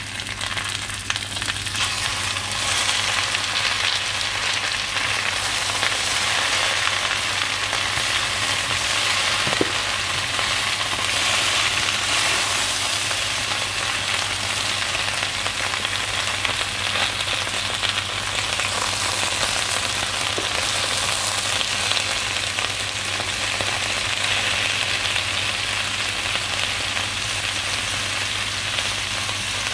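Sliced potatoes and button mushrooms sizzling steadily in hot oil in a frying pan, stirred now and then with a spatula, over a steady low hum.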